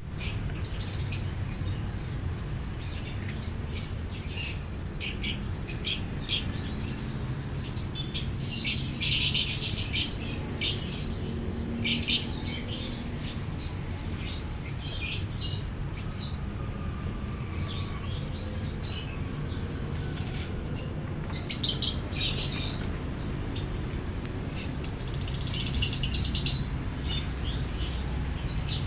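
Iguana sneezing: short, sharp hissing puffs forced out through the nostrils, repeated many times at irregular intervals. This is how an iguana expels salt from its nasal salt glands.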